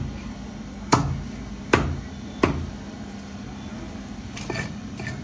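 A blade chopping through a catfish on a chopping block: three sharp strikes about three-quarters of a second apart, then a couple of softer knocks near the end.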